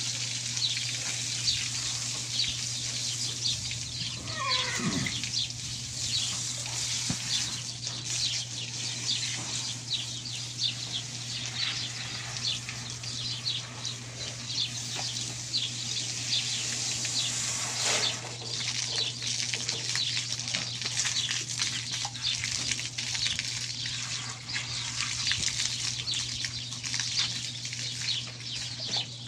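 Garden hose spraying water onto a horse's soapy coat, a steady hiss with the patter of splashing droplets, as the shampoo is rinsed off, over a steady low hum. About four seconds in, one short falling animal call.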